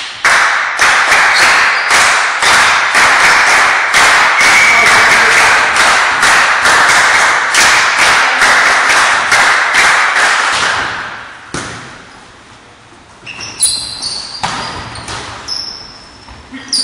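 Rhythmic clapping with shouting from a crowd in a large gym hall, about two to three claps a second, dying away about eleven seconds in. Then a volleyball rally: ball hits and sneakers squeaking on the wooden floor.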